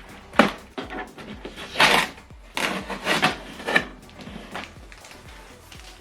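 A printer being handled: several short scraping and rubbing noises with a few light knocks as its parts are moved. The strongest comes about two seconds in.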